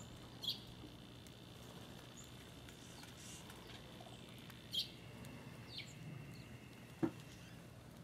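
Small songbirds giving a few short, sharp chip calls, three of them clear, over a faint steady hum, with one louder sharp click near the end.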